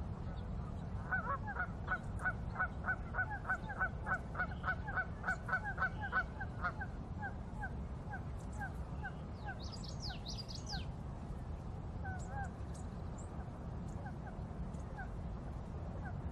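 Birds calling: a fast run of short repeated calls, about three a second for roughly six seconds, then scattered single calls. A brief burst of high chirps comes about two-thirds of the way through, over a steady low rumble.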